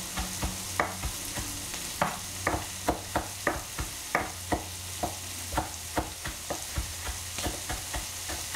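A chef's knife chopping fresh parsley on a wooden cutting board: a quick run of short knocks, roughly three a second and unevenly spaced, over a steady hiss and a low hum.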